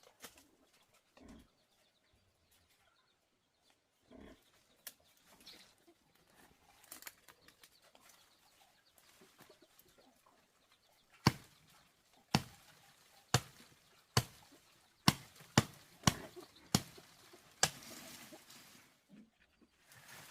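A series of sharp knocks, about nine, coming roughly once a second from about eleven seconds in, after a stretch of faint, scattered sounds.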